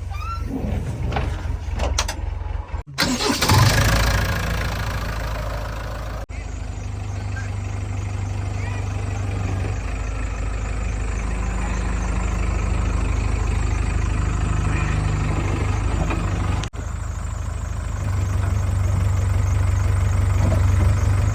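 Heavy diesel machinery engine running steadily with a low rumble, rising briefly and louder about three seconds in, with a few abrupt breaks.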